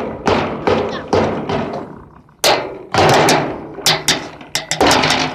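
Feet stomping over and over, a quick uneven run of heavy thuds with a short pause about two seconds in.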